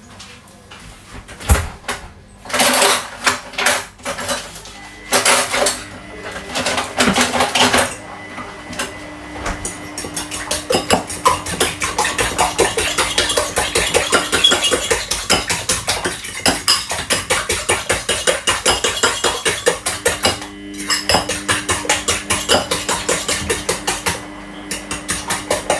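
Fork beating eggs in a bowl: fast, regular clinking of metal against the bowl, several strokes a second, with a short break partway through and a few scraping knocks before the beating starts.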